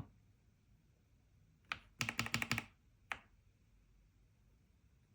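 Keys on a Tecware Ghost 75% mechanical keyboard with linear switches being pressed. One keystroke comes first, then a quick run of about eight, then a single one about half a second later.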